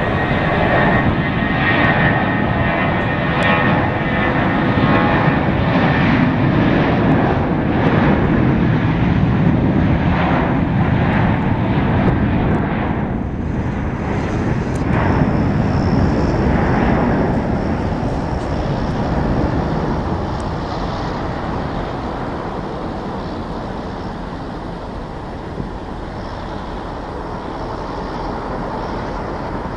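Airbus A320-231's IAE V2500 turbofan engines at takeoff thrust: a loud jet roar with a whine as the airliner rolls down the runway past, then fading gradually in the second half as it lifts off and climbs away.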